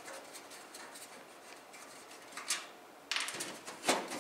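Faint rubbing and small clicks of a PC case being unscrewed and opened by hand, with a louder rustling scrape starting about three seconds in.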